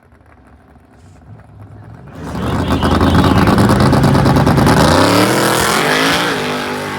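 A drag racing car's engine at full throttle as it launches and accelerates hard down the strip. The sound jumps up loud about two seconds in, the engine note climbs in pitch, then fades away near the end.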